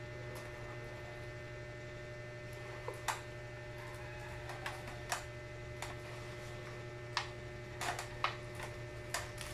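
Chicken feet being eaten by hand: scattered short wet clicks and smacks of chewing and sucking on the bones, about a dozen spread irregularly, over a steady low hum.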